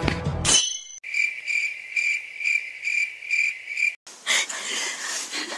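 Cricket chirping: an even, high chirp repeated about twice a second for about three seconds. It follows a music cue that cuts off in the first second and is itself cut off sharply, giving way to hissy room noise with faint rustling.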